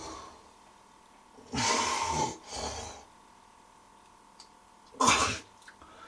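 Three short, harsh, breathy bursts from a voice, the first two close together and a third about two seconds later.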